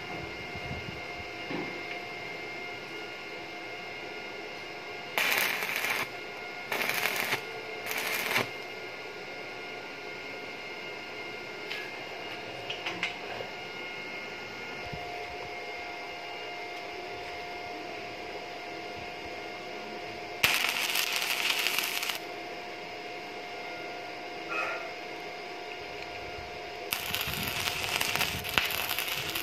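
Stick (arc) welding: the electrode strikes an arc in short crackling, sizzling bursts, three brief ones close together, then a longer one and another about two seconds long near the end, with a steady low hum between them.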